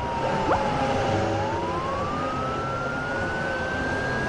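Police siren wailing: one slow tone that falls over the first second or so, then climbs slowly back up.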